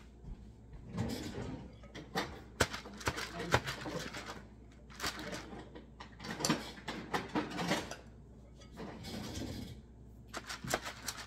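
A spoon clinking and scraping against a glass mixing bowl while scooping meringue onto a parchment-lined baking tray: a string of irregular sharp clicks and knocks with soft rustling and scraping between them.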